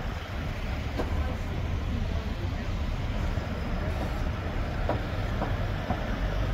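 Road traffic: cars driving past along the street, a steady low rumble of tyres and engines.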